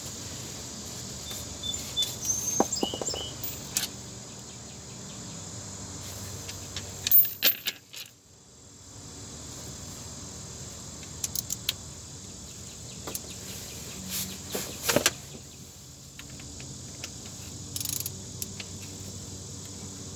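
Scattered metallic clicks and clinks of a socket wrench working the 10mm bolts on a Nissan Altima's CVT transmission pan.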